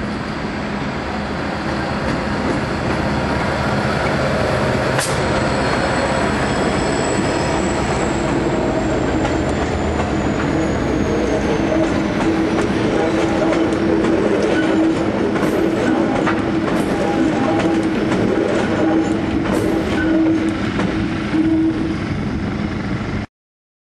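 Pacific National 83 class diesel locomotives running as they pass at low speed, leading a light-engine consist that includes two 71 class electric locomotives. A high whine slowly falls in pitch, and in the second half the wheels click over the rail joints. The sound cuts off abruptly just before the end.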